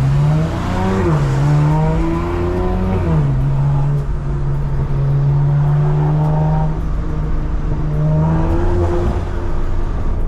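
BMW M4's S58 twin-turbo inline-six through a full stainless Valvetronic exhaust, heard from inside the car. It pulls up through the revs with two quick drops in pitch, like gear changes, in the first three seconds, then holds steady low revs for several seconds and changes again near the end. The tone is mellow, with little to no rasp at low RPM.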